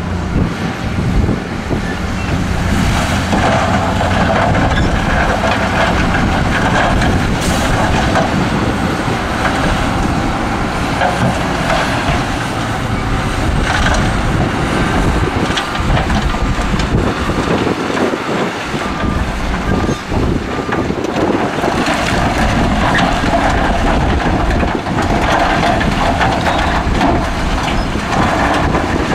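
Heavy diesel dump trucks running steadily while their tipper beds lift and loads of rock and dirt spill out.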